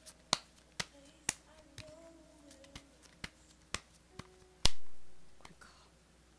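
Oracle card deck being shuffled in the hands: sharp card clicks about twice a second, with one louder slap about four and a half seconds in.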